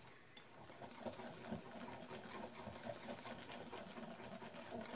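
Hand wire whisk beating muffin batter in a ceramic bowl: a faint, fast run of ticks and scrapes as the wires strike the bowl while flour is mixed in.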